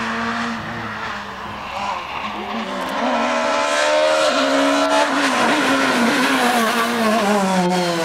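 Rally car engines at full stage pace. The first engine fades briefly, then revs climb hard from about three seconds in, and the pitch drops after about five seconds and falls steadily toward the end.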